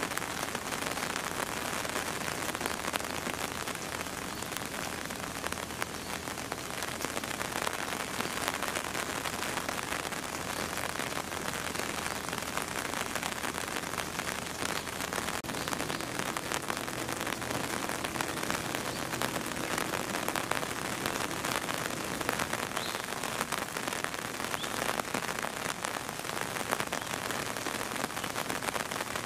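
Steady rain falling, a continuous hiss with a dense patter of drops hitting a hard surface.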